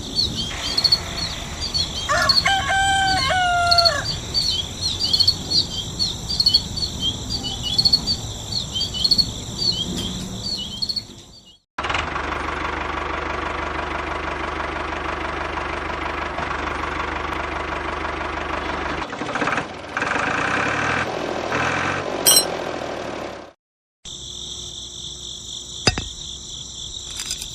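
A rooster crows once, about two seconds in, over a steady chorus of high-pitched chirping. About eleven seconds in the sound cuts to a different steady noise that lasts about twelve seconds, then cuts back to the high chirping.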